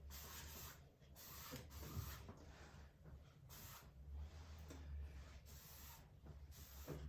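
Paintbrush loaded with acrylic paint dragged across a canvas in a series of faint scratchy strokes, each about a second long with short pauses between.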